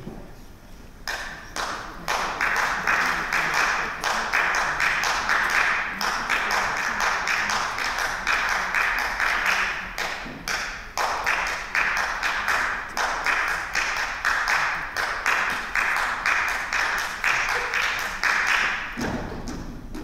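Rhythmic percussive tapping, about three sharp strikes a second over a bright rattling haze, starting about a second in and stopping shortly before the end.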